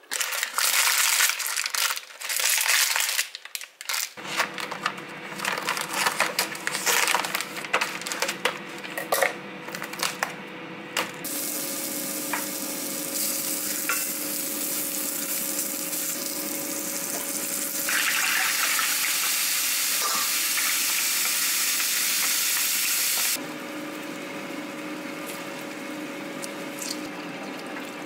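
Stainless steel cookware clattering and clinking. Then a wooden spoon stirs and scrapes in a stainless frying pan as garlic fries, over a steady hum. The frying becomes a steady sizzle, loudest for a few seconds past the middle, then drops off near the end.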